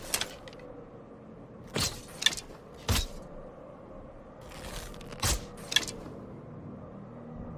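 A bow being shot twice, a few seconds apart. Each shot is a quick cluster of sharp snaps and knocks.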